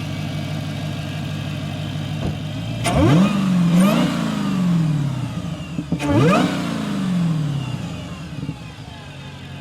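Supercharged 6.2-litre Hemi V8 of an SRT Hellcat, breathing through a K&N cone air filter, idling and then revved twice, about three seconds apart. A supercharger whine rises with each rev and slides back down as the engine settles back to idle.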